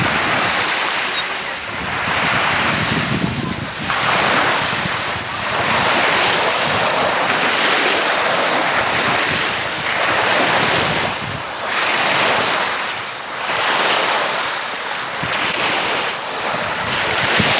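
Lake waves washing onto the shore in repeated surges about every two seconds, with wind.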